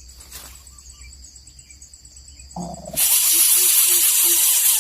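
Faint chirps, then about three seconds in a loud, harsh, steady hiss starts suddenly: the defensive hiss of a bubut (coucal) chick.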